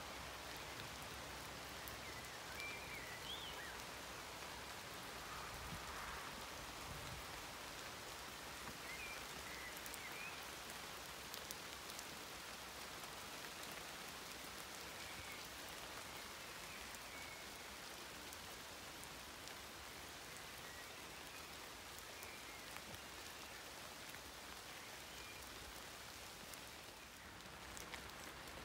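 Rain falling steadily on leaves and foliage: an even hiss of many small drops.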